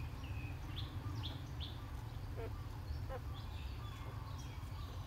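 Newborn puppies giving short, high-pitched squeaks, falling in pitch, several in quick succession in the first two seconds and a few more later, over a steady low rumble.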